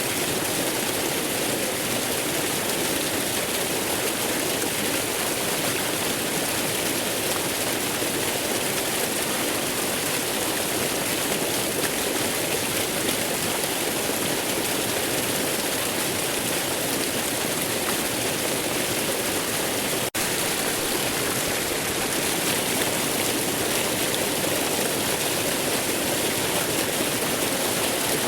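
Waterfall rushing: a steady, even roar of falling water, with a momentary dropout about two-thirds of the way through.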